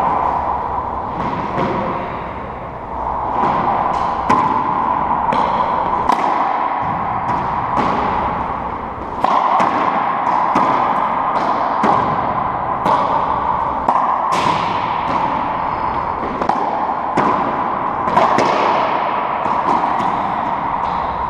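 Racquetball rally: repeated sharp, echoing smacks of the rubber ball off racquets, the walls and the hardwood floor, over a steady hum.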